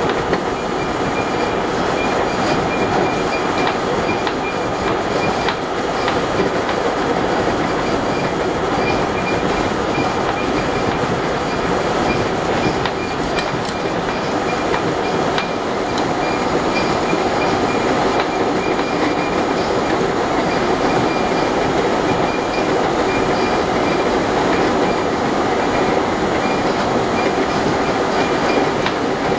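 An R32 subway car running at speed, heard from inside the car: a steady loud rumble with scattered clicks from the wheels and a thin, steady high tone over it.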